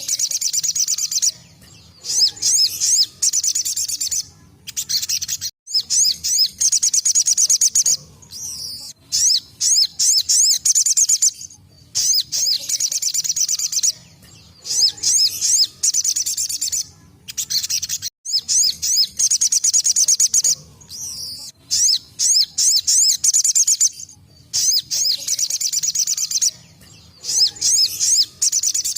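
Ruby-cheeked sunbird (sogon) singing its rapid, high-pitched 'tembakan' song: dense twittering trills in bursts of a second or a few seconds, broken by short pauses and repeated over and over.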